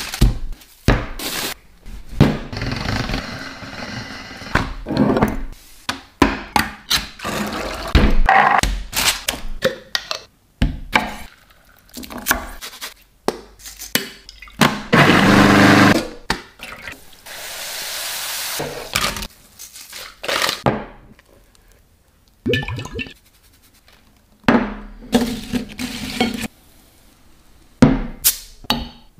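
A quick series of close-up kitchen sounds cut one after another: knocks and scrapes of handling, with a food processor running briefly near the middle.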